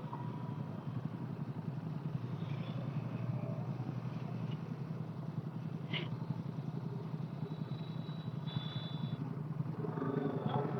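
Motorcycle engine running steadily while riding: a low, even hum under road noise.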